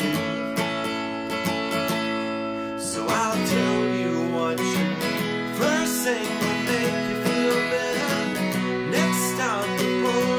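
Acoustic guitar strummed in steady chords, with a man singing over it in the middle and near the end.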